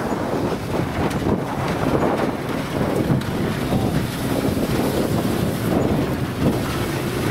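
Wind buffeting the microphone in constant gusts, with a low rumble beneath it.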